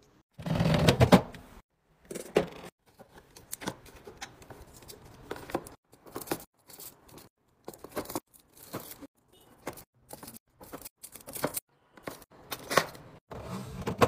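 Plastic food tubs and small juice cartons being set down and slid into clear plastic fridge bins, making a run of light clacks, taps and scrapes. A louder rustling clatter comes near the start and again near the end.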